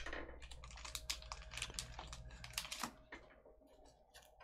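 Typing on a computer keyboard: a quick, irregular run of keystrokes for about three seconds, then it stops.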